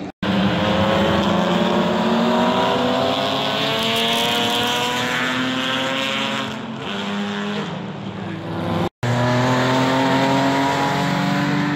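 Historic racing car engines running at speed past the trackside, their notes sliding up and down in pitch as the cars go by. One note falls in pitch midway as a car passes. The sound breaks off abruptly twice for an instant.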